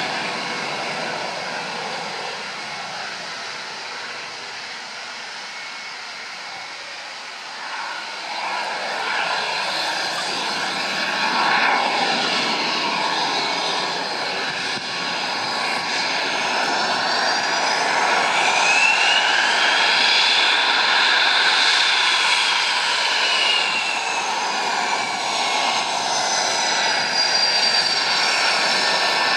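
Saab JAS 39 Gripen fighter's jet engine running at taxi power: a steady whine that grows louder after the first several seconds. Past the middle, its high whistling tone rises and then falls in pitch.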